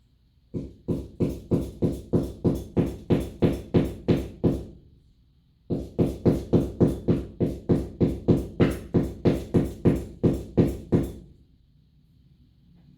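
Hammer blows driving a nail into a wall to start a hole: two runs of steady, evenly spaced strikes, about three a second, with a short pause about five seconds in.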